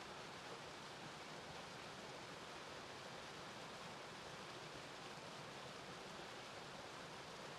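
Small woodland waterfall spilling down a rock face: a steady, faint rush of falling water.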